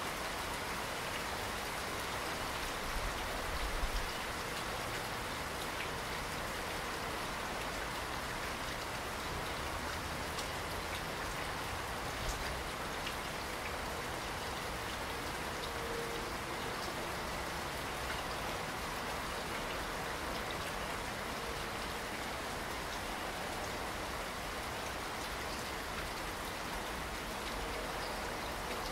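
Steady rainfall, a dense even hiss with scattered individual drops heard as small ticks. A couple of brief low bumps stand out, about three seconds in and again around twelve seconds.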